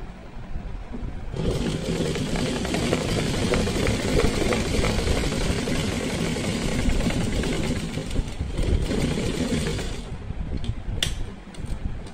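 Sewing machine running fast, its needle stitching through fabric in a rapid steady chatter. It starts about a second and a half in and stops near the end, followed by a single sharp click.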